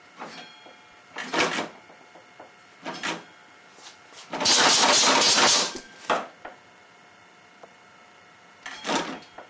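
Homemade compressed-air engine, converted from a two-stage air compressor, puffing out irregular bursts of air hiss as its flywheel is held and turned by hand. The longest and loudest blast lasts over a second, about halfway through.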